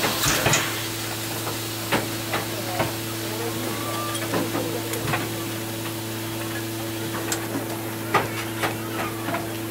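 Crowd murmuring with scattered clicks and knocks, over a steady low hum and a faint hiss.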